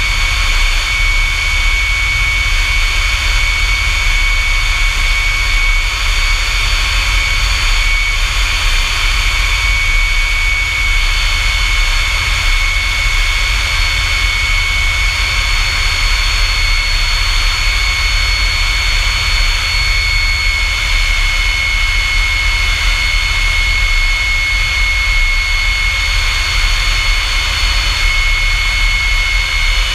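F-100 Super Sabre's J57 turbojet engine running steadily: a constant high whine over a low rumble, unchanging throughout.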